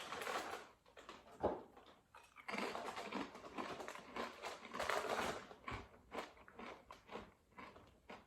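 Crunchy potato crisps being bitten and chewed close to the microphone, in irregular crackly crunches with one sharp crack about a second and a half in.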